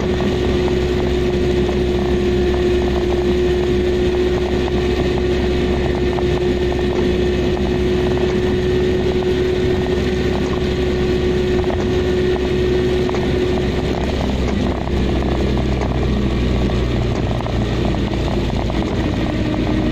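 Car engine and tyre noise on a wet road, heard from inside the cabin while driving: a steady rumble with a held hum that shifts a little lower about fourteen seconds in.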